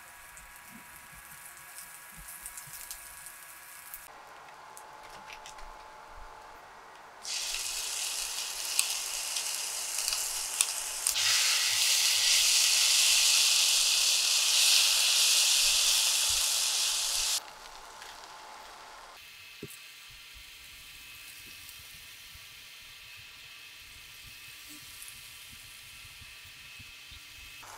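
Sliced shallots frying in oil in a pan, with a faint sizzle at first. About seven seconds in a much louder sizzle starts, louder again a few seconds later, as a wet paste meets the hot oil; it cuts off suddenly about ten seconds after it began.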